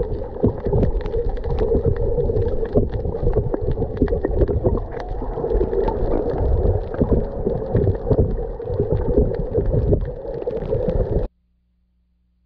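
Underwater sound picked up through an action camera's housing over a coral reef: a muffled, steady low drone of water with dense crackling and knocks. It cuts off suddenly about eleven seconds in.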